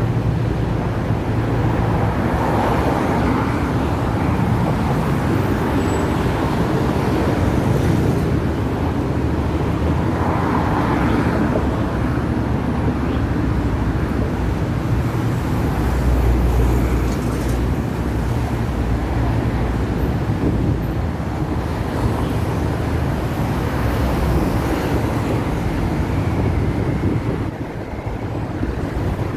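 Hong Kong double-decker tram running, a steady rumble of motor and wheels on the rails with street traffic around it. A heavier low rumble comes briefly about halfway through.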